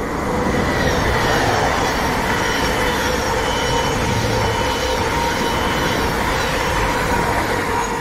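Thameslink Class 700 electric multiple unit passing through the station at speed: steady wheel and rail noise with a steady whine, building over the first second and easing off near the end as it draws away.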